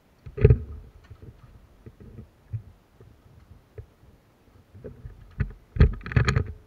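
Thumps and knocks close to the microphone: one loud knock about half a second in, scattered faint clicks, and a quick cluster of loud thumps near the end.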